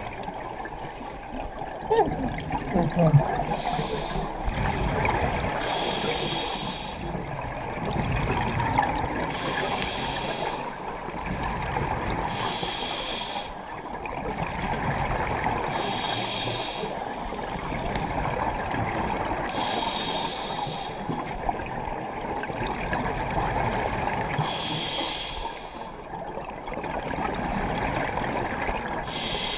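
A scuba diver breathing through a regulator underwater. Each exhalation comes out as a hissing, bubbling burst, about seven of them three to five seconds apart, over a steady underwater rumble. There is a brief falling squeak about three seconds in.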